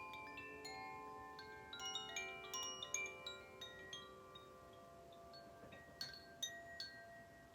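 Koshi chime gently swayed, its tuned metal rods struck by the clapper at irregular moments, each tone ringing on and overlapping the others. The strikes come thickest a couple of seconds in, thin out, and a few sharper strikes sound about six seconds in.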